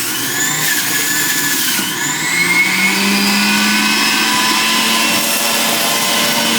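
Breville juicer running: a loud, steady motor whine over a rough hiss, with a low hum settling in about two seconds in.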